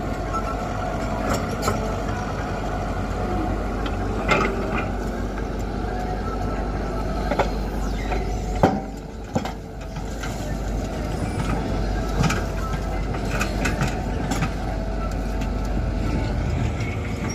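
Tata Hitachi 120 excavator's diesel engine running steadily under working load, with several sharp knocks and clatters as the bucket works and murrum is tipped into the steel body of the tipper truck, the loudest a little past halfway.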